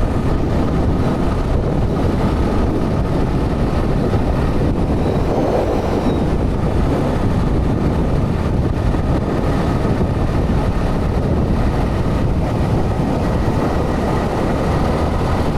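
Honda CBR motorcycle cruising steadily at about 70 km/h: an even mix of engine and wind rush.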